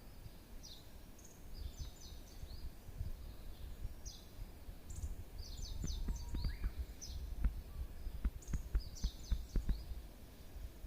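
A songbird repeating the same short, high song phrase about every three and a half seconds, over a low rumble, with scattered sharp clicks in the second half.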